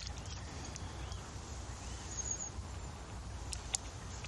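Outdoor field ambience: steady low wind rumble on the microphone, with faint bird chirps about two seconds in and two light clicks a little later.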